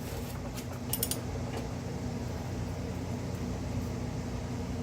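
A few short metallic clicks about a second in, from a ratchet turning a brake caliper bracket bolt, over a steady low hum.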